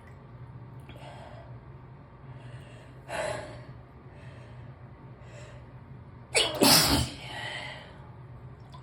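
A person's sharp intake of breath, then one loud sneeze about six and a half seconds in.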